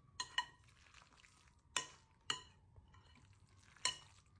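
Metal spoon stirring chunky guacamole in a glass mixing bowl: about five light clinks of the spoon against the glass, each ringing briefly.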